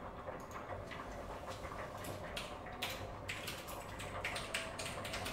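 Typing on a computer keyboard: a run of soft, irregular clicks, thickest from about a second and a half in.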